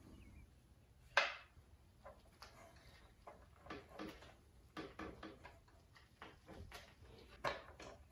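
Light clicks and knocks of a fuel hose and its fuel fitting being handled and positioned on an outboard motor, with one sharper click about a second in.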